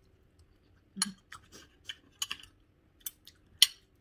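Eating sounds while someone eats spicy instant noodles: short sharp clicks and smacks, irregularly spaced, starting about a second in, with the loudest near the end.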